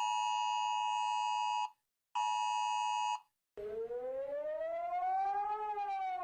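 Emergency Alert System attention tone, a steady two-tone electronic beep, sounds for about two seconds and then again for about one second. After a short silence a siren wail starts, rising slowly in pitch and beginning to fall near the end.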